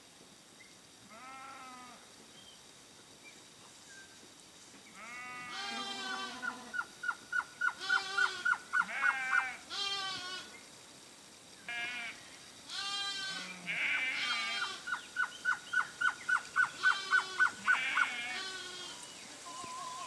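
Male blue-crowned trogon singing two runs of evenly spaced notes, about four a second, each run lasting about three seconds. Louder harsh calls with many overtones come and go around the song.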